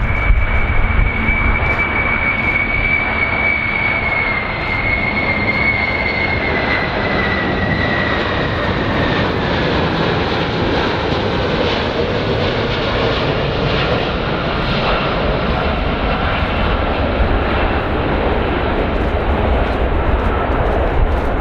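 Airplane engine noise, a steady rushing sound with a high whine that slowly drops in pitch from about four seconds in.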